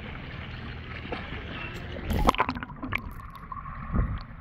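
Pool water sloshing and splashing right at the microphone as a swimmer moves through it, with a loud splash about two seconds in. From about three seconds the sound turns muffled as the camera dips under the surface, with a steady hum and a dull thump under water.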